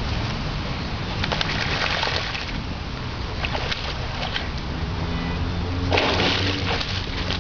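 Boerboel dogs wading and swimming in a shallow pond, water sloshing and splattering, over a steady hiss. About six seconds in comes a louder burst of splashing as a dog scrambles out onto the bank.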